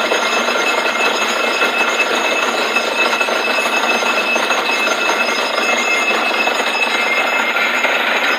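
Borewell drilling rig running steadily: a continuous dense mechanical rattle with a thin steady whine above it.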